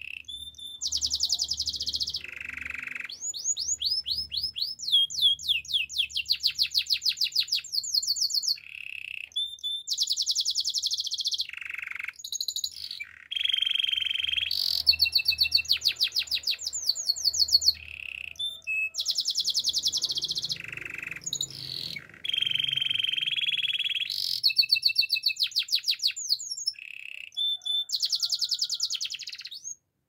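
Canary singing a continuous song of fast trills. Each phrase is a rapid string of repeated high notes that switches to a new phrase every second or two, with a few lower, smoother rolling phrases among them.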